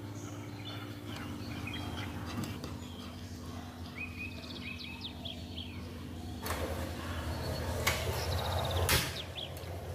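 A spoon stirring sauce in a glass bowl while birds chirp in the background. Later comes a broad hiss with two sharp clicks as a portable gas stove's knob is turned to light the burner.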